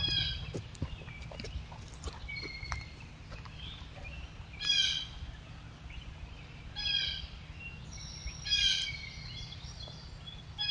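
Wild birds calling: one bird repeats a short, multi-note call several times, with smaller chirps in between, over a steady low hiss from the trail camera.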